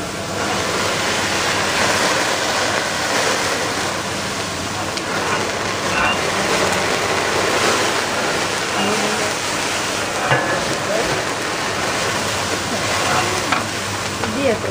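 Fried rice sizzling on a teppanyaki steel griddle as it is flambéed: a steady hiss of frying and flame.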